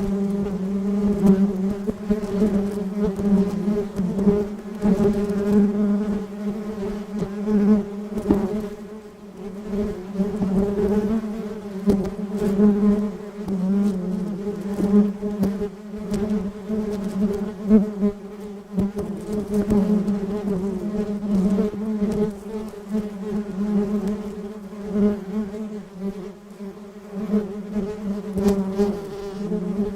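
A bee buzzing: a continuous steady-pitched hum whose loudness keeps swelling and fading.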